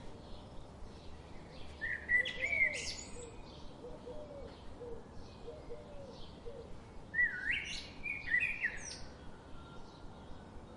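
Rain forest ambience. Birds give two bursts of sweeping, warbling calls, loudest about two seconds in and again around seven seconds. Beneath them run faint chirps repeating about twice a second, softer low notes, and a steady hiss.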